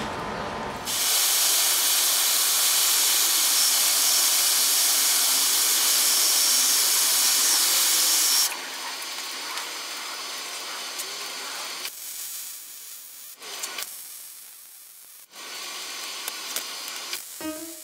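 MIG welding arc tack-welding a half-inch steel round-bar brace to square steel tubing: a loud, steady hiss that starts about a second in and cuts off suddenly after about seven seconds.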